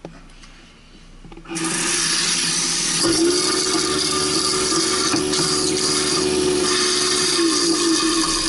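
Tap water pouring into the sink while a Waste King 1-horsepower garbage disposal runs with a steady hum, both starting suddenly about a second and a half in; the hum grows stronger about three seconds in and eases near the end. The bone has already been ground, so the unit is clearing the last small piece.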